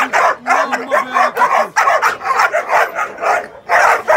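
Young dogs barking rapidly and without let-up in a crowded van, about three or four barks a second.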